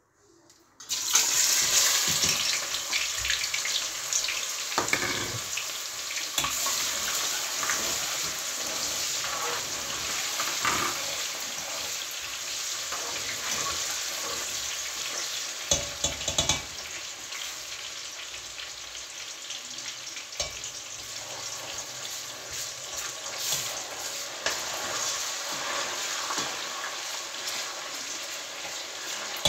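Sliced onions dropped into hot oil in a steel pot, bursting into a loud sizzle about a second in, then frying with a steady sizzle that slowly eases. A spoon knocks and scrapes against the pot now and then as they are stirred.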